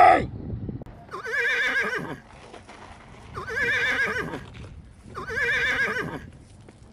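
An animal-like call with a quavering pitch, repeated three times almost identically. Each call lasts about a second, and they come about two seconds apart.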